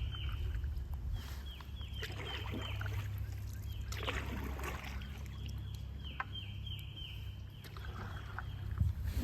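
A bird calling in runs of short, high notes that each fall in pitch, three runs of several notes, over a steady low rumble from the moving canoe. A brief splash-like rush comes about four seconds in.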